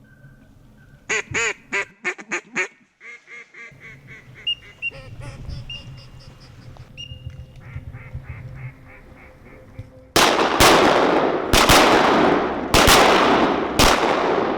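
Duck quacking: a loud run of quacks about a second in, then softer quacks and chatter. From about ten seconds in, about six shotgun shots follow in quick succession.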